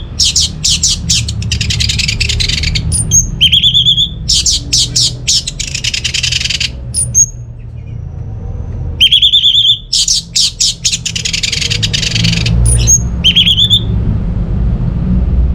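Orange-headed thrush singing: phrases that start with a rising whistle and run into a long, dense, rapid trill, heard three times with a pause of about two seconds before the last. A steady low hum runs underneath.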